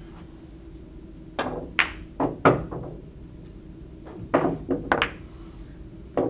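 Billiard balls on a pin-billiards (keglebillard) table clicking against each other and knocking off the cushions after a shot. The series of sharp clicks and knocks starts about one and a half seconds in, is loudest about two and a half seconds in, and has a second cluster a little past four seconds.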